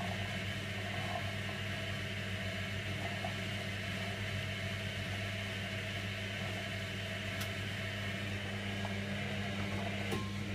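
Servis Slimline 308S washing machine running with a steady, unchanging low electric hum.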